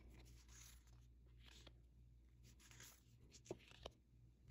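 Faint rustling of tarot cards being handled and slid off the deck, with a few light taps as cards are laid down on a velvet cloth, two of them a little after the middle.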